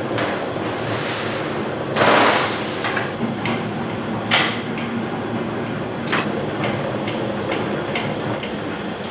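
Steady machine running with repeated light knocks and clatter, about two a second, and a louder rush of noise about two seconds in.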